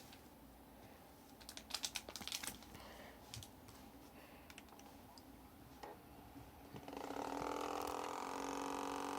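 A few scattered clicks and taps, then about seven seconds in a homemade cooling stand's fan starts up with a steady hum of several tones at once. This is the abnormal noise the stand makes.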